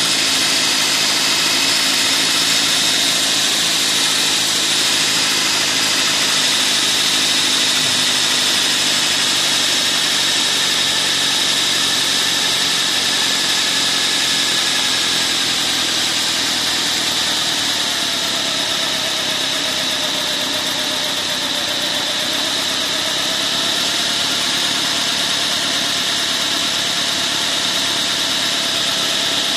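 Gauge 3 live-steam, methylated-spirit-fired model of a Stanier 8F locomotive under steam: a loud, steady hiss with a high whine, and a fainter tone that dips and rises about two-thirds of the way through.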